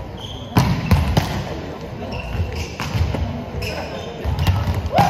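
A ball thudding and bouncing on a hard court floor, several sharp impacts a second or so apart, with players' voices calling out.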